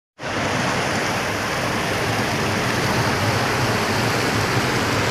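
Small waterfall pouring over a low stone weir and splashing below: a steady rushing of water heard close up.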